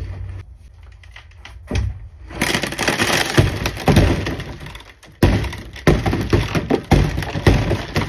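Large hail sound effect: hailstones striking hard, a few separate hits at first, then a dense, continuous clatter of sharp impacts from about two seconds in, with louder single cracks standing out.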